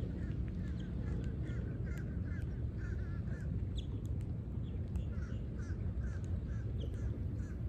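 Wind rumbling steadily on the microphone, over two runs of short wavering bird calls, about two a second, with a pause about four seconds in.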